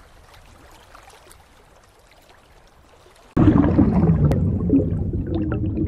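Faint rushing of shallow stream water around wading bare feet. About three and a half seconds in it cuts suddenly to a loud, muffled rush with gurgling as the camera goes under the water.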